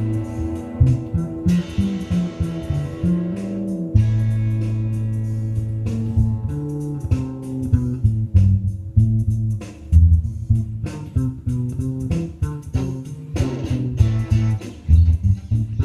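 An electric bass and a Telecaster-style electric guitar jamming together without drums, the bass holding long low notes under plucked guitar lines.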